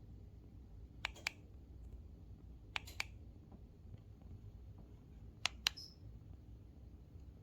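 Three pairs of sharp clicks, roughly two seconds apart, over a steady low hum.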